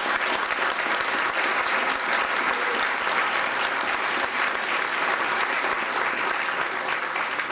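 Audience applauding, many people clapping steadily at an even level.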